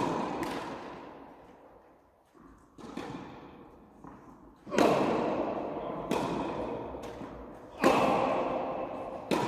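Tennis ball being hit with a racket and bouncing on an indoor court, a rally of sharp pops every one to three seconds, each ringing on in a long hall echo.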